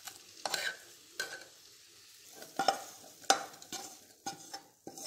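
Metal utensils knocking and scraping against a pressure cooker: a perforated ladle mashing boiled dal and tomato, then a spatula scraping sautéed vegetables out of a pan into the cooker. About seven sharp, irregularly spaced knocks with scraping between them.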